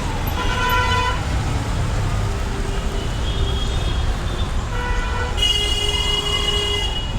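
Horns tooting over a steady low rumble of traffic and crowd noise. There is a short toot near the start, then another horn about five seconds in that is held for nearly two seconds.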